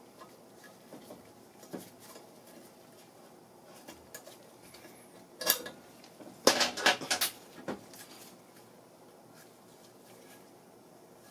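Metal engine parts clinking and tapping against a Briggs & Stratton vertical engine's block during hand reassembly: scattered light clicks, a sharp clink about five and a half seconds in, and a quick run of louder clinks around seven seconds.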